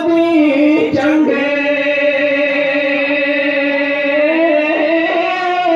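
A man singing a Sufi kalam into a microphone: a short ornamented phrase, then one long note held for about four seconds.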